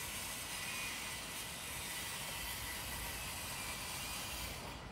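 Steady outdoor background noise: an even hiss, strongest in the upper range, with no distinct events, easing off just before the end.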